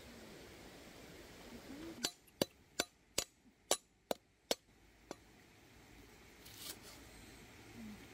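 A run of about eight sharp knocks, two or three a second, starting about two seconds in and stopping after about three seconds.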